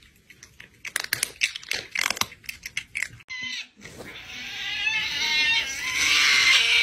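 Crisp crunching of potato chips being chewed, a quick irregular run of crunches. About three seconds in it gives way to a dog's long howl that wavers in pitch and grows louder toward the end.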